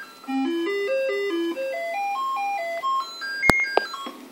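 Commodore 64 SID sound chip playing the diagnostic test tune: short stepped electronic notes in several voices, rising and falling in runs. About three and a half seconds in, a sharp loud click and a second smaller one break in, and the tones stop. This is a glitch that the owner suspects comes from a faulty SID chip.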